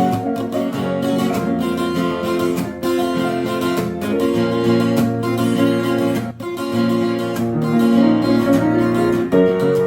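Acoustic guitar being strummed and played, with sustained chords and notes and a brief break about six seconds in.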